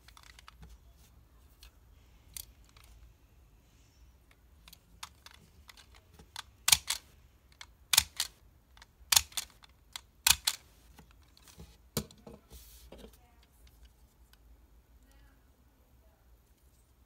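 Small plastic Eyecon toy clicking as it is pressed and its eye mechanism is flipped in the hands: sharp clicks, mostly in close pairs, loudest about seven to eleven seconds in.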